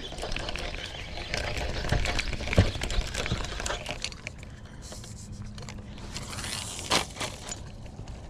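Handling noise from a spinning rod and reel being worked: scattered clicks, knocks and rustles, with a brief hiss between about five and six and a half seconds in and a sharp knock about seven seconds in.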